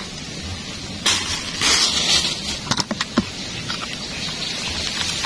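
Rustling and handling noise from hands working on dry leaf litter with a cloth, net bag and a small digital hanging scale, loudest a little under halfway through, with a few sharp clicks about three seconds in. A steady low rumble runs underneath.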